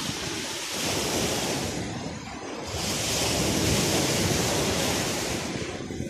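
Small sea waves breaking and washing up a sandy shore, swelling twice: briefly about a second in, then longer and louder from about three seconds. Wind buffets the microphone with a low rumble.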